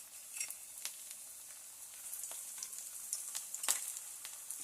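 Sliced sweet plantain frying in shallow oil in a non-stick pan: a steady high sizzle with scattered crackling pops, the loudest about three-quarters of the way through.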